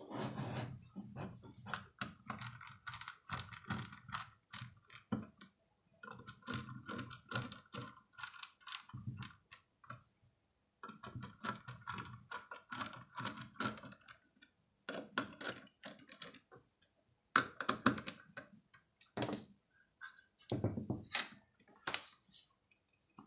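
Small screws being driven into a black metal PiKVM enclosure with a precision screwdriver: several spurts of rapid ticking and scraping as the screws turn, between sharp clicks and knocks as the case is handled on the desk.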